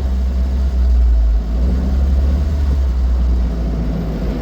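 Austin 7 Ruby's small four-cylinder side-valve engine running steadily as the car is driven, a low continuous rumble.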